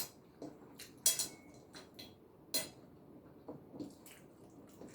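A person eating a meal: scattered light clicks and taps of utensils and dishes, the two loudest about a second in and about two and a half seconds in.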